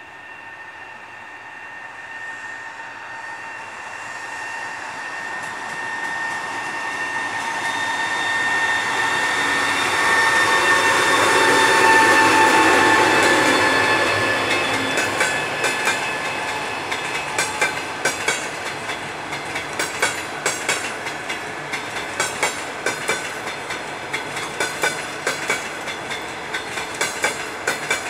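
EP20 electric locomotive hauling a passenger train of double-deck coaches approaches and passes, growing louder to a peak about twelve seconds in, with a steady high whine that fades as it goes by. The coaches then roll past with a regular clickety-clack of wheels over rail joints.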